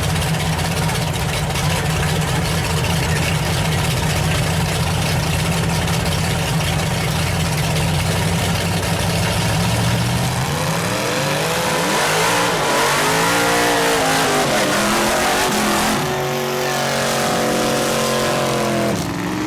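A big 4x4 mud truck's engine running loud and steady, then revving up and down over and over from about halfway through, and holding a high rev near the end.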